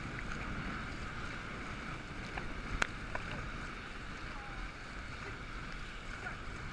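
Water and wind noise around a paddled boat on open water, with wind buffeting the microphone. A single sharp knock comes about three seconds in, with a few fainter ticks around it.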